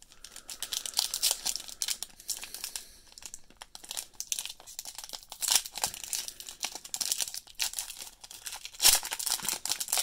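A foil trading-card pack wrapper crinkling in the hands and being torn open: a dense run of crackles and rustles, loudest near the end.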